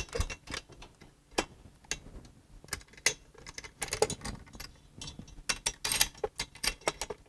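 Irregular light metal clicks and clinks as a Controlli valve actuator's yoke and coupling are worked onto the threaded stem and nuts of a flanged valve body, with a small cluster of clicks about four seconds in and again near the end.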